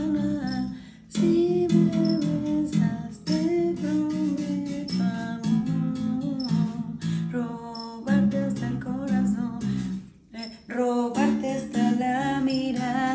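Electric bass played through an amplifier in phrases broken by short pauses, under music that carries a sung melody.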